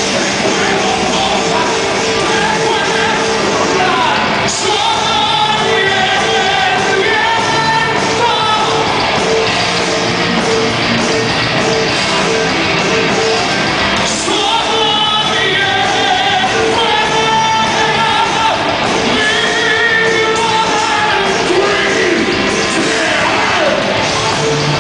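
Heavy metal band playing live: electric guitars, bass and drums with lead vocals in several sung phrases over a steady, driving rhythm.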